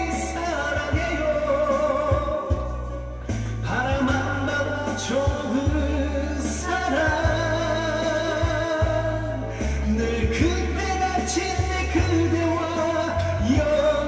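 A man singing a Korean trot song into a microphone with instrumental accompaniment, his voice holding long, wavering notes over a steady bass line.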